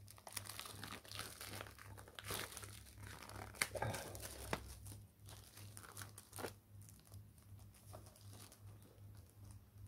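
Plastic shrink-wrap being torn and crinkled off a DVD case: irregular crackling, loudest about four seconds in, thinning out over the last few seconds.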